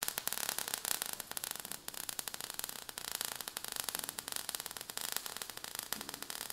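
Faint, dense crackling and hissing: a sparks sound effect for an animated logo intro.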